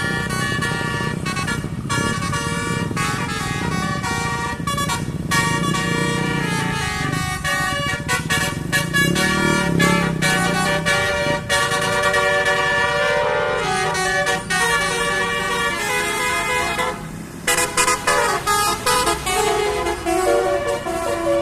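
Basuri 'telolet' multi-tone bus horn playing a melody in stepped notes, over the low rumble of a running engine. The tune breaks off for a moment past the middle and then carries on.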